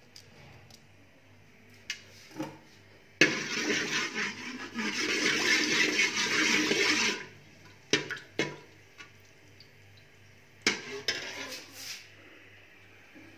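Cardamom dropped into hot desi ghee in a steel pot, sizzling hard for about four seconds, starting suddenly about three seconds in. A few short utensil knocks and clinks come before and after.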